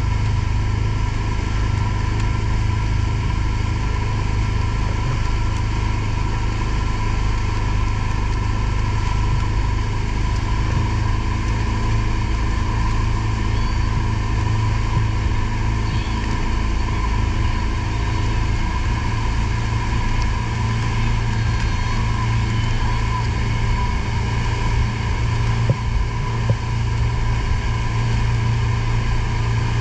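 Mercury outboard motor running steadily at speed while towing a banana boat, with the rush of water from the wake behind the boat.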